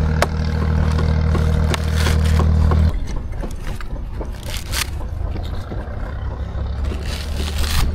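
A motor's steady low drone stops abruptly about three seconds in. After it come scattered scraping sounds and a few sharp knocks.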